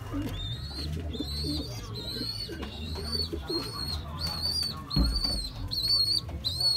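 Pigeons in a loft: a regular series of high, thin peeping calls, about two a second, over low cooing. One thump about five seconds in, as the nest bowl is handled.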